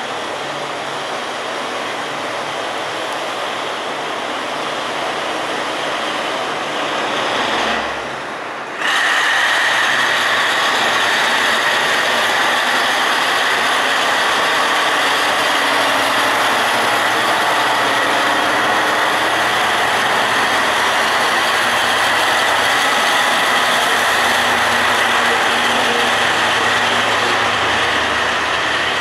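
Two-car KiHa 40 diesel railcar set pulling out and running past under power, a steady mechanical rumble and rattle of engines and running gear. About nine seconds in the sound briefly dips and then steps up louder, with a steady high whine over it from then on.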